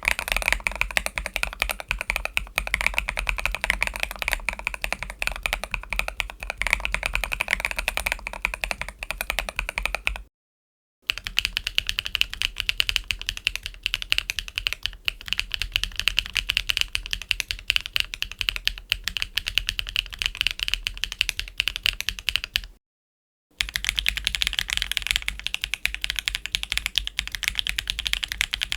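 Continuous typing on mechanical keyboards fitted with Invokeys Hojicha Reserve tactile switches: quick, irregular keystroke clacks. The sound comes in three takes of about ten seconds each, on different keyboard builds, separated by two brief dead-silent cuts; the first take has a deeper bottom end than the later two.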